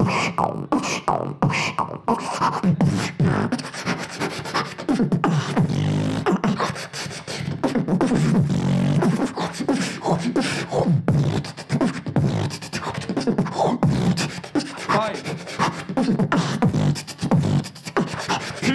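Solo beatboxing into a cupped handheld microphone: rapid vocal kick and snare hits in a steady beat, with pitched, held bass notes woven in at times.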